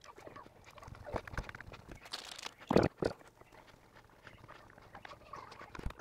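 Scattered clicks and knocks of a hand tool working against the metal bracket of a gate closer on a wooden gate, with a louder short knock about three seconds in.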